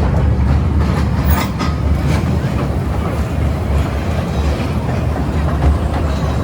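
Toy train running on its rails: a steady low rumble, with a few sharp clicks about a second and a half in.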